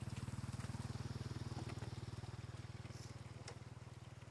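A small engine running steadily with a fast even pulse, slowly fading after about two seconds. A few light knocks come over it.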